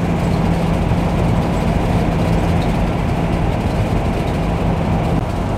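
Steady road and engine noise heard inside a 2018 Coachmen Leprechaun motorhome cruising at highway speed. A steady low drone runs under it and stops about five seconds in.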